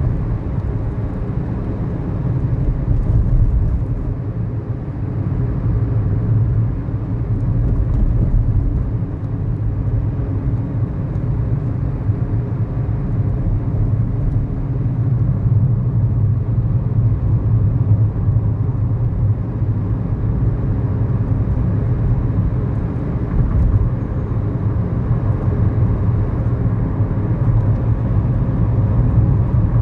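A 2011 Kia Morning's 999 cc four-cylinder SOHC engine running steadily as the car drives, with tyre and road noise, heard inside the cabin.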